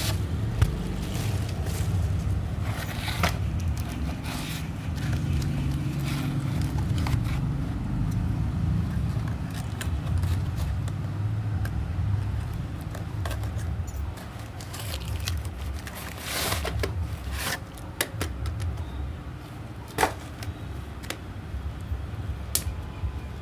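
Packaging being handled while a tripod is unboxed: plastic bubble wrap crinkling, tape being picked and peeled, and the cardboard box shifting and scraping, in scattered short crackles and scrapes. A steady low rumble runs underneath.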